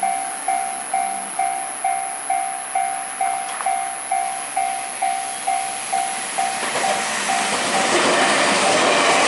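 Railway level-crossing warning bell ringing, an electronic ding about twice a second. From about seven seconds in, a train's running noise rises and grows loud over the bell.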